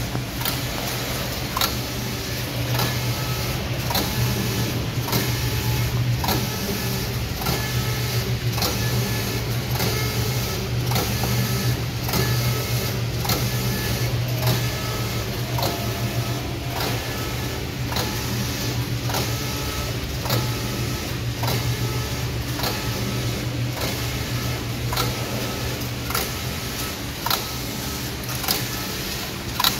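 LX1132F-14GG computerized flat knitting machine running as it knits a jacquard collar: a steady hum with regular sharp clicks and clacks about every three-quarters of a second as the carriage travels back and forth along the needle bed.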